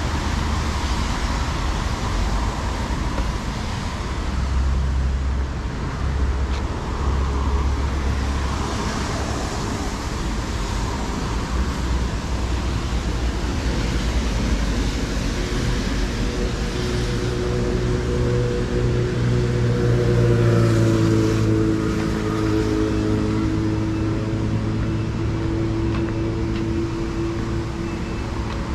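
Road traffic noise, steady throughout. From about halfway through, a heavier vehicle's engine hum builds, loudest about two-thirds of the way in, then eases off.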